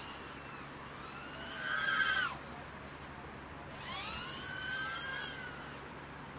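Small FPV quadcopter's motors whining as it passes close by twice. The whine rises and falls each time, the first pass about two seconds in being the louder.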